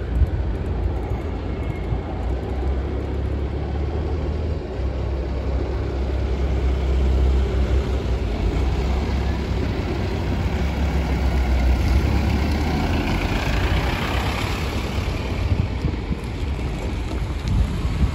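Steady low rumble of road vehicles, with one vehicle passing close: a broad swell of noise that rises and fades about two-thirds of the way through.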